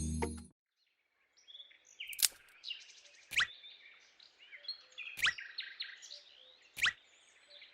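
Birds chirping: faint twittering with a sharp, quickly falling call about every one and a half seconds. Background music cuts off just before.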